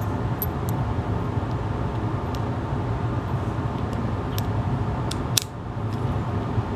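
Light metallic clicks of cartridges and the cylinder of a Smith & Wesson J-frame .38 Special revolver being handled, with one sharp click about five and a half seconds in as the cylinder is closed, over a steady low background hum.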